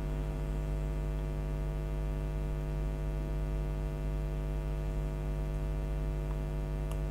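Steady electrical mains hum with a stack of overtones, unchanging throughout, with one faint click near the end.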